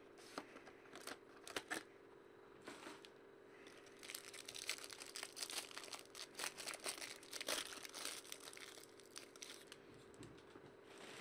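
Clear plastic shrink-wrap being torn off a sealed box of hockey cards and crinkled in the hands. A few short crackles come first, then dense crinkling from about four seconds in until near the end.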